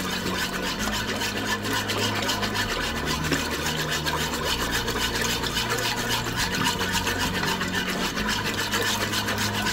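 A utensil stirring briskly in a thin roux-and-water soup base in a Cuisinart stainless steel pot, scraping and swishing against the metal in quick, even strokes.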